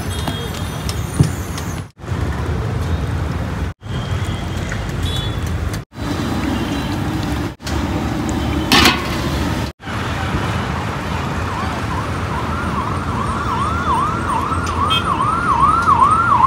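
Steady outdoor street noise broken into short segments with brief dropouts, then from about eleven seconds in a siren sweeping up and down about twice a second, growing louder toward the end.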